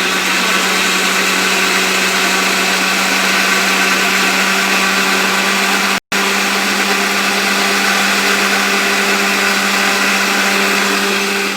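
Moulinex countertop blender running at a steady speed, blending eggs, sugar, oil and milk into a runny cake batter. The sound cuts out for a split second about six seconds in.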